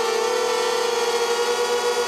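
Small FPV hexacopter's six 2300 kV brushless motors and propellers whining steadily in flight, one sustained hum with slight wavering in pitch.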